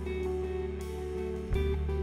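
Live worship band playing an instrumental passage: guitar notes over deep sustained bass notes, with a new low note coming in about one and a half seconds in.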